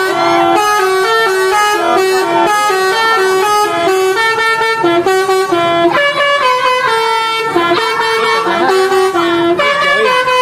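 Telolet basuri multi-trumpet bus horn on a Tunggal Jaya bus, playing a long melody as a quick run of held notes stepping up and down in pitch without a break.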